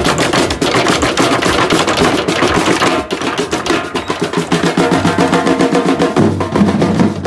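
Percussion band playing large bass drums (surdos) and snare drums together in a fast, dense rhythm, the deep bass drum notes growing stronger near the end.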